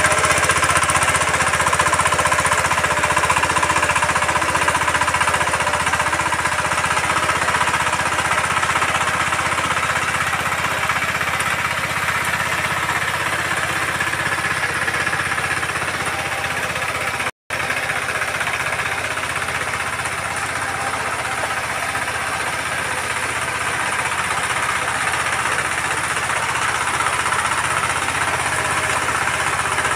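Walk-behind power tiller's single-cylinder diesel engine running steadily under load as its rotary tines churn the soil, with a split-second break in the sound about halfway through.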